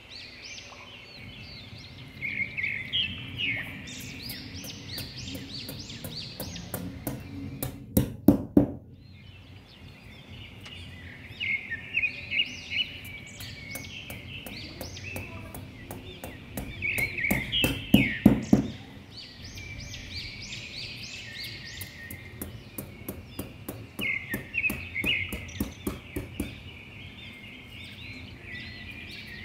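Small birds chirping and twittering in short bursts every few seconds over a low steady rumble, with sharp clicks about eight seconds in and again around eighteen seconds.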